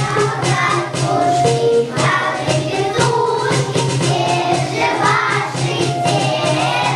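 A group of young children singing a song together over instrumental accompaniment with a steady beat.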